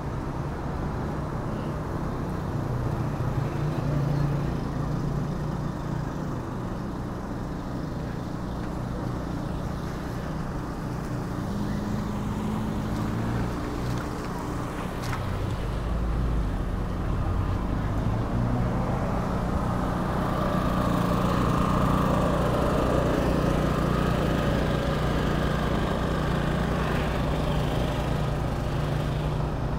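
Street traffic: car engines running and passing, a steady low hum that grows louder about halfway through.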